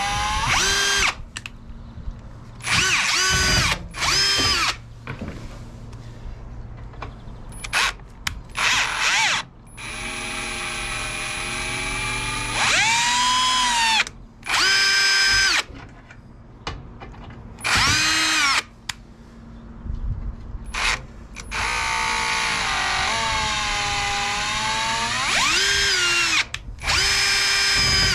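Cordless drill driving stainless screws into an aluminium dash panel in a dozen or so short runs. Its motor whine rises in pitch as the trigger is squeezed and falls as it is released, with short pauses between runs.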